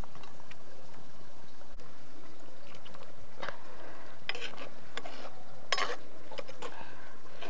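Pot of fish curry boiling as fish pieces go in and a steel ladle stirs them through. The ladle knocks against the pot about five times in the second half.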